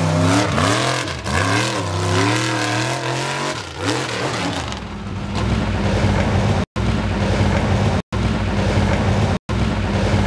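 Mega truck engine revving hard, its pitch swooping up and down several times as the tires throw dirt. After about five seconds it gives way to a steady low drone, cut by brief complete dropouts about every second and a half.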